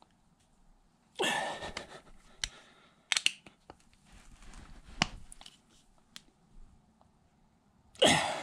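Metal hex key working the bolts of a Torc Mega ground anchor being tightened very tight: a short grating scrape about a second in, then a few sharp metallic clicks, and another scrape near the end.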